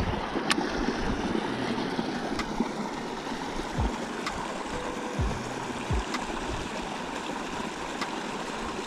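Water running where a stream flows into a pond: a steady rushing hiss, with a few faint clicks and low thumps.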